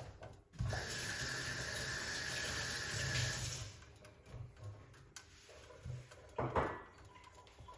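Water running from a kitchen tap for about three seconds, starting and stopping abruptly. A short knock follows a few seconds later.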